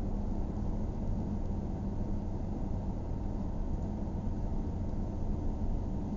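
Car cabin noise while driving: a steady, low rumble of engine and tyres on the road heard from inside the car.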